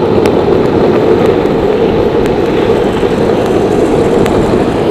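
Skateboard wheels rolling fast down an asphalt road, a loud steady rumble with a few faint ticks from cracks and grit in the surface.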